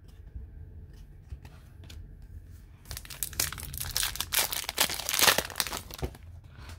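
Crinkling plastic wrapping being handled: a few faint clicks, then about three seconds of dense crackling from near the middle.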